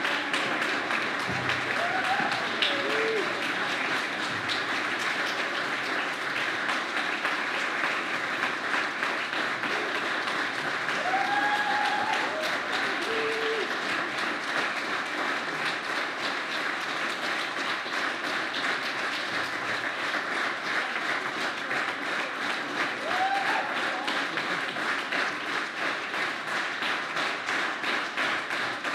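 Audience applauding steadily, with a few brief voices heard over the clapping.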